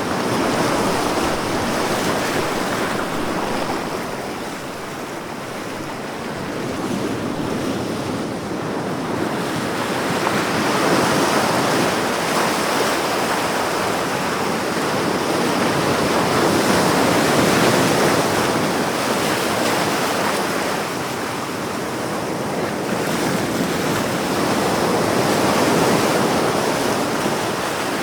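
Ocean surf: a continuous rushing wash of breaking waves that swells and eases every several seconds.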